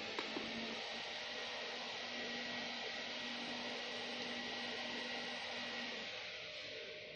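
Steady fan-like rushing noise with a faint low hum under it, and a light click just after the start. The noise fades away near the end.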